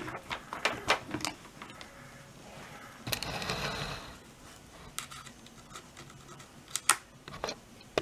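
Laptop charger cable and its plastic connector being handled on a desk: a scatter of light clicks and taps, with about a second of rustling around three seconds in.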